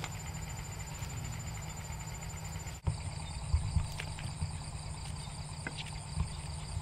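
Night insects trilling steadily in fine, even pulses, with a few soft thumps and rustles of footsteps and hands moving through wet undergrowth. The trill changes pitch abruptly about three seconds in.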